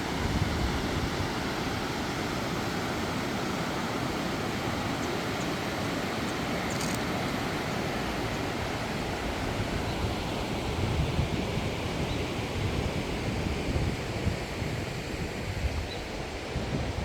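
Steady rush of a mountain river's flowing water, with wind gusting on the microphone, mostly in the second half.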